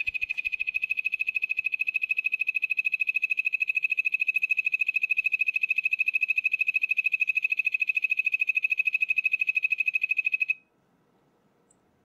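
Yellow-banded poison dart frog (Dendrobates leucomelas) calling: one long, high trill of rapid even pulses, about fifteen a second, that stops suddenly about ten and a half seconds in.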